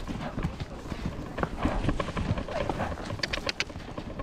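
Horses' hooves clopping on a rocky trail in irregular steps, with a cluster of sharper clacks about three seconds in.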